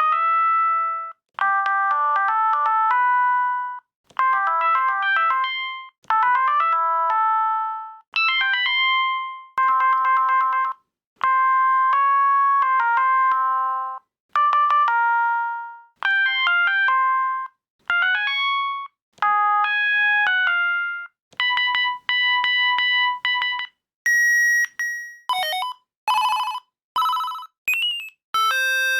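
Siemens A55 mobile phone built-in ringtones playing in succession, a new synthesized melody starting about every two seconds with a short break between them. In the last few seconds the tunes become shorter and higher-pitched.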